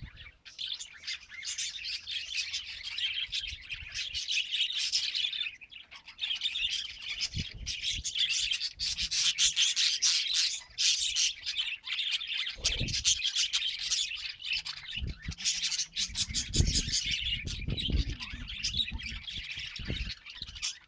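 Budgie chatter: a fast, continuous warble of chirps, clicks and squeaks. Low bumps or knocks come about twelve seconds in and again a few seconds later.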